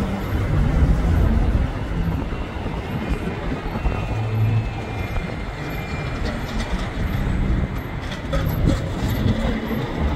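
Storm-force wind buffeting the microphone in uneven low gusts, over a steady distant roar from a jet airliner climbing away.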